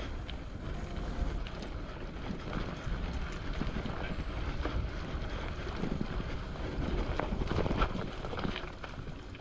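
Wind rushing over the microphone of a camera on a moving bicycle, with knocks and rattles from the bike rolling over a rough dirt singletrack, busiest a little past the middle.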